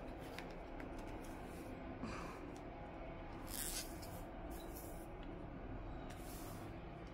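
Tarot cards being dealt and slid across a wooden tabletop: a few soft swishes of card on wood.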